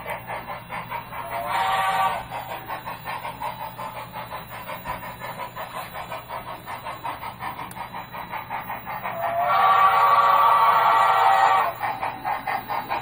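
On3 model steam locomotive's onboard sound system chuffing steadily and rapidly, with a short whistle blast about a second and a half in and a long, louder whistle blast near the end.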